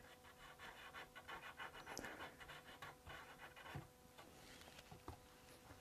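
Near silence: faint room tone with a low steady hum, and a faint quick rhythmic rasping during the first three seconds or so.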